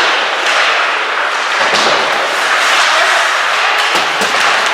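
Ice hockey game in a rink: a steady, loud wash of noise with a few sharp knocks, about two seconds in and again near the end.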